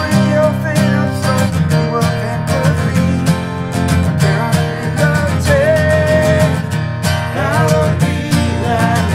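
Two acoustic guitars strummed together with a man singing over them, holding one long note around the middle.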